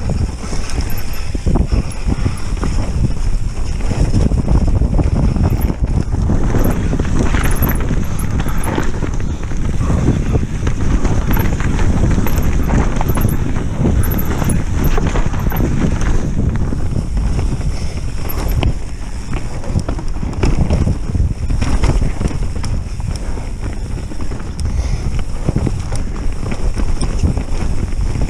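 Mountain bike descending a frozen forest trail: tyres rumbling over frosty dirt and the bike and action camera rattling with constant small knocks over the bumps, with wind noise on the microphone.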